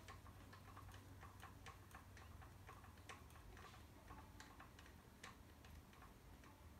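Faint, irregular small clicks, several a second, of a hex driver and plastic parts as the drive pin is unscrewed from an RC truck's driveshaft yoke, under a low steady hum.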